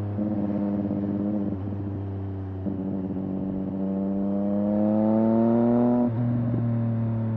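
A 2017 Triumph Street Triple 765 R's inline three-cylinder engine running on the road. It holds fairly steady revs, then pulls up through the revs for about three seconds, getting louder. About six seconds in the pitch drops suddenly as it changes gear.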